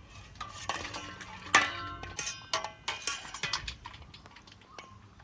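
A spoon clinking and scraping against a dish, a quick series of ringing knocks with the loudest about a second and a half in, fading out in the last second or so.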